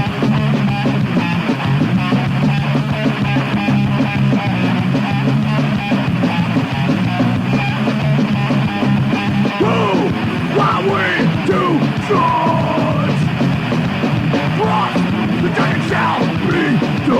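Thrash-punk band recording with distorted guitar, bass and drums playing loud and steady; from about ten seconds in, sliding, bending high notes or yells rise over the riff.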